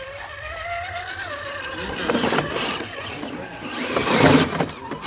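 Electric motor and gears of an RC rock crawler whining, the pitch rising a little and then sagging as it crawls. Rough scraping and crunching follows about two seconds in and, louder, around four seconds in.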